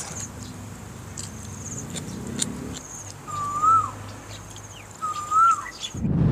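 A bird calls twice, about a second and a half apart, each call a short whistle that rises then dips, over a faint high steady trill. About six seconds in, a loud low rumble starts.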